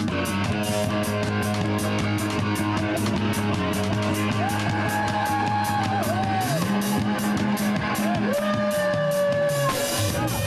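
Live rock band playing: electric guitar holding long lead notes that bend up and down, over sustained bass notes and busy drums and cymbals.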